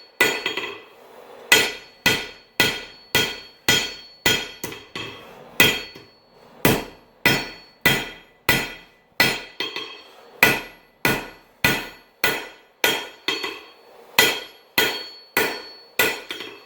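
Hand hammer striking a hot railroad spike on an anvil, drawing the steel out, in a steady rhythm of about two blows a second with a metallic ring after each. There is a short pause about a second in.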